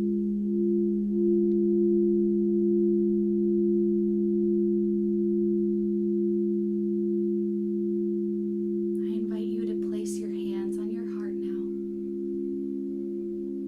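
Singing bowls holding a sustained low chord of two pitches, the tones pulsing gently as they beat against each other. A third pulsing tone joins about nine seconds in, along with a brief hiss lasting about two seconds.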